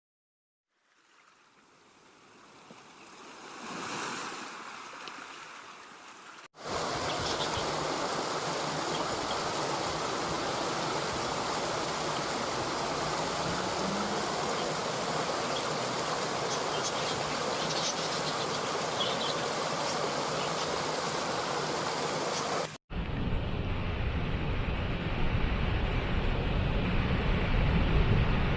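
Rushing water of a waterfall, a steady even rush. It fades in over the first few seconds, then jumps to a louder, full rush at a cut about six seconds in. At a second cut near the end it turns deeper and more rumbling.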